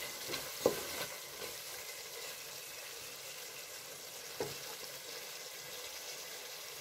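Spiced bitter field beans sizzling in a pot while a spatula stirs them, with a short scrape of the spatula on the pot about a second in and again past four seconds.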